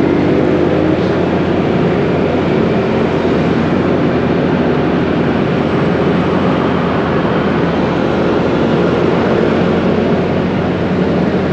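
Steady traffic and road noise heard from a moving vehicle: engines running and tyres on the road as one continuous rush, with no breaks or sudden events.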